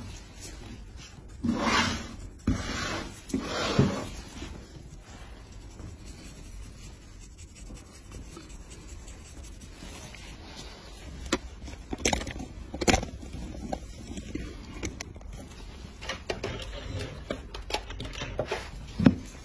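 A blade scraping dry, cracked callus off a heel: a few rasping strokes in the first four seconds, then two sharp clicks about twelve seconds in and more light scraping near the end.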